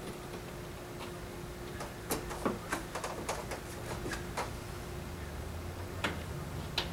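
About a dozen light metallic clicks over two and a half seconds, starting about two seconds in, then two more single clicks near the end. They come from hands working at a ceiling light fixture's metal extrusion while the reflector is seated and set screws are tightened. A faint steady hum sits underneath.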